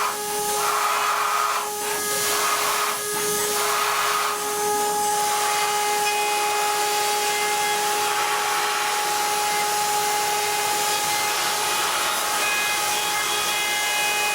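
High-speed milling spindle of a DATRON CNC machine running at a steady pitch, a whine with a fainter tone an octave above, over the hiss of the cutter working the housing. The cutting hiss comes in several short surges over the first five seconds, then runs on evenly.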